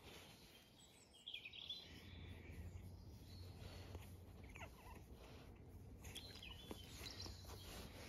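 Near silence: quiet outdoor ambience with a few faint bird chirps, about a second in and again around six to seven seconds in.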